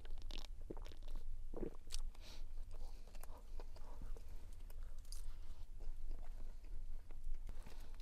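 A person chewing and biting into a stove-baked flatbread, with irregular crunches, over a steady low rumble.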